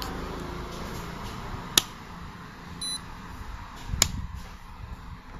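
Trisco DA-830 digital automotive multimeter's rotary selector switch clicking sharply twice as it is turned, with one short, faint high beep from the meter between the clicks.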